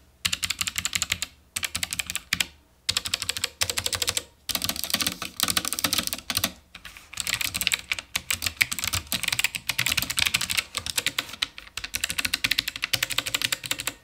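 Fast typing on a Morgrie RKB 68 low-profile mechanical keyboard with white switches: rapid runs of key clicks broken by short pauses every second or two, a little on the louder side.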